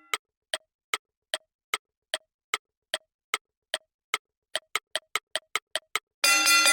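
Clock-like ticking sound effect, about two and a half ticks a second, speeding up to about five a second for the last second and a half. A loud ringing bell-like chime strikes near the end.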